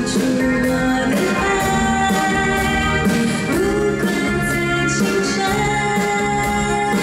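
A woman singing a Mandarin pop song live into a microphone, backed by a band with a steady beat, heard through the concert's amplified sound system.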